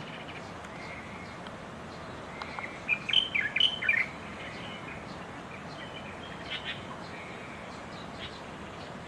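A bird calling: a burst of quick, sweeping chirps about three seconds in, then a few fainter calls later, over steady background noise.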